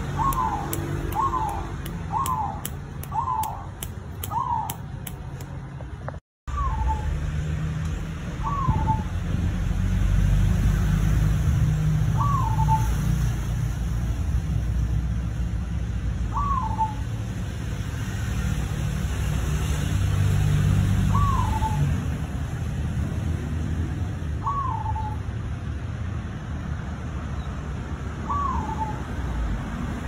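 Caged zebra dove (perkutut) calling with short hooked notes, about one a second at first. After a brief dropout the notes come singly, roughly every four seconds, over a low background rumble.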